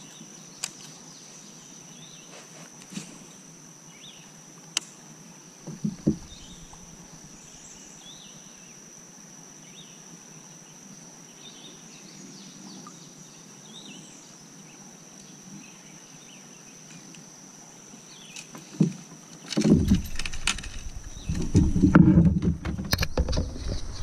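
Steady high-pitched insect drone from the riverside trees, with a few sharp clicks and faint bird chirps. Near the end, louder rumbling and knocking as the paddle and kayak are handled.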